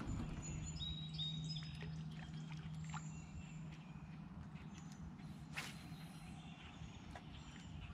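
Faint lakeside ambience: small birds chirping in short high notes over a low steady hum that stops about five and a half seconds in, with one sharp click at about the same point.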